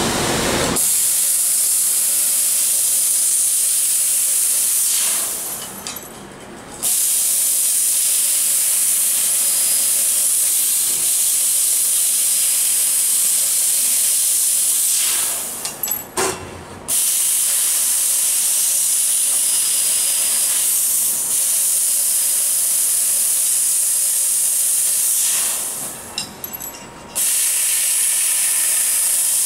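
Bodor T6A fiber laser tube cutter cutting square carbon-steel tube: a steady, high hiss of cutting gas blasting from the cutting head, which stops three times for a second or two between cuts.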